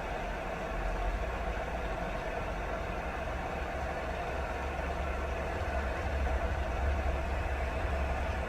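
Steady, continuous rain noise with a low rumble underneath.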